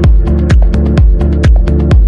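Electronic dance music with a steady kick drum about twice a second, sharp hi-hat-like ticks between the beats, and held synth chords.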